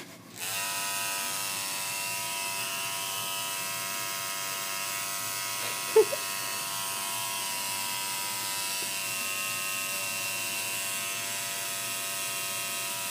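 Electric tattoo machine buzzing steadily as it needles ink into the skin of a wrist. It starts up about half a second in, and there is one brief sharp sound about six seconds in.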